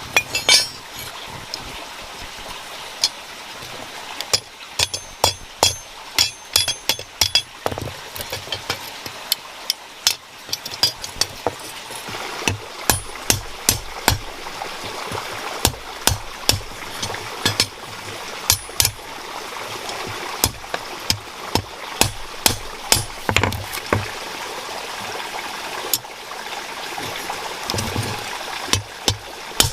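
Irregular sharp knocks and clinks of hand tools striking, some with a short metallic ring at first and heavier, quicker thuds later, over a steady background of running stream water.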